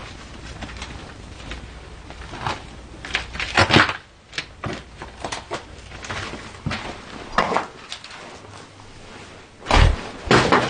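Scattered knocks, scuffs and footsteps in a small room, the loudest a few knocks close together a few seconds in and a low thump near the end.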